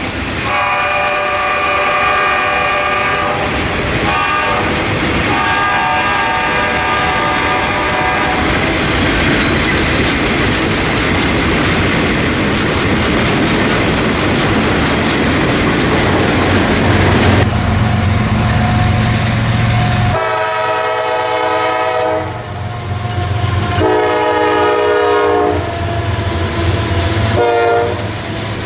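Diesel locomotive air horn sounding a chord in long and short blasts, then the train passing close with a loud, even rumble of engines and wheels. Near the end the horn sounds again, two longer blasts and a short one.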